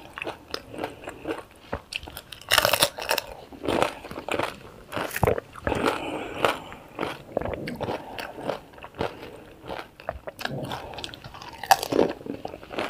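Close-miked eating of panipuri: crisp hollow puris crunching between the teeth, followed by wet chewing. The bites come irregularly, with the loudest crunches about two and a half seconds in and near the end.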